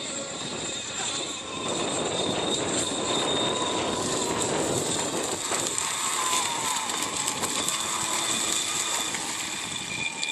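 Electric radio-controlled racing boat running at speed across the water: a steady high-pitched motor whine over hissing spray.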